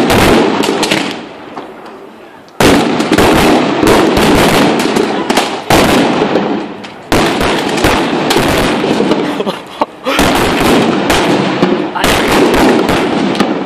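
Strings of firecrackers going off in rapid crackling runs of bangs. A short burst comes at the start, then after a lull of about two seconds several long runs follow one another with brief breaks. These are the firecrackers packed into a burning Judas effigy.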